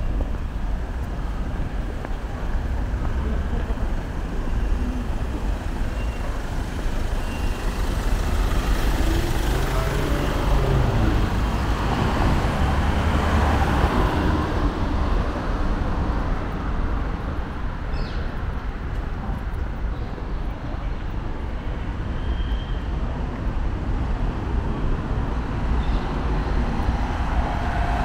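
Steady road traffic: cars and vans passing on a city street, swelling louder for a few seconds as a vehicle passes close about ten seconds in.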